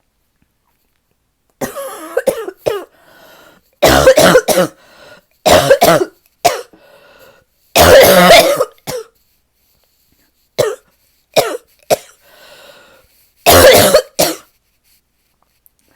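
A person's deep barking cough in repeated loud fits, beginning about a second and a half in, some fits a single bark and others two or three close together. It is a persistent cough in someone whose lungs ache.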